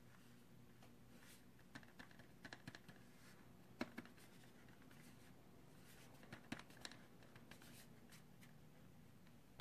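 Fingertips tapping and drumming on the underside panel of an MSI GS73VR Stealth Pro laptop: a scatter of faint light taps and clicks, with the sharpest a little under four seconds in and again about six and a half seconds in. The panel rattles only when drummed on like this, not in normal use.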